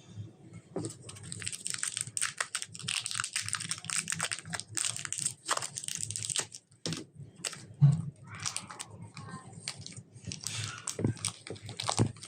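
Slime being kneaded and mixed with clay by hand: dense runs of sticky crackling clicks and squelches, pausing briefly about seven seconds in, with a short low thump about eight seconds in.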